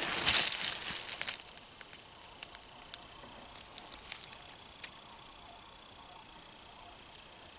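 Rustling and crackling of dry brush and leaves, loud for about the first second and a half. After that come scattered light ticks and crackles over a faint steady high tone.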